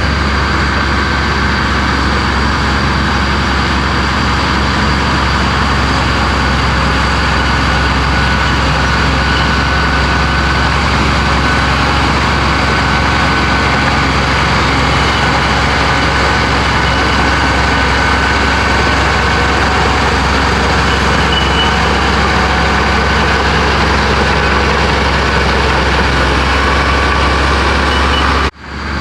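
Heavy diesel engine of a Komatsu bulldozer running steadily under load. The sound cuts out for a moment near the end.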